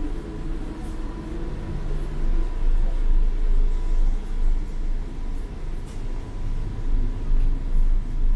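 Low rumble inside the passenger car of a TCDD E23000 (Hyundai Rotem) electric multiple-unit train, rising and falling in loudness, with a faint steady high tone over it.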